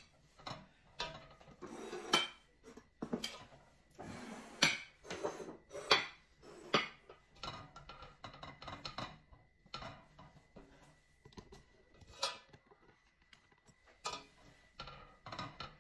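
Black slotted spatula scraping and knocking against the inside of a stainless steel pot, irregular clatters with the loudest strikes about 2, 5, 6, 7 and 12 seconds in.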